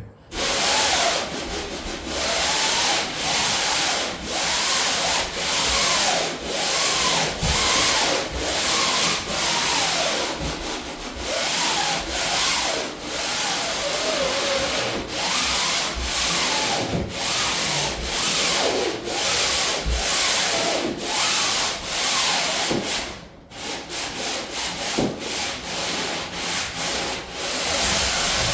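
Sandpaper rubbing over painted plywood in repeated back-and-forth strokes, about one or two a second, with a brief pause about 23 seconds in. This is a light scuff-sanding of the first coat of paint/primer to give a smoother second coat.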